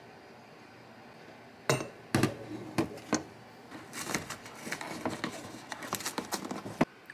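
Tableware handled on a hard tabletop: a few sharp knocks of crockery and glass, then a quick run of small clicks and rustles as a paper milk carton is handled. The sounds stop abruptly near the end.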